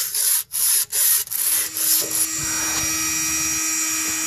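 Hand sanding strokes on a rusty steel exhaust pipe, two to three scrubs a second. About a second and a half in, a small rotary tool with an abrasive wheel starts and runs with a steady whine. The pipe is being cleaned down to bare metal.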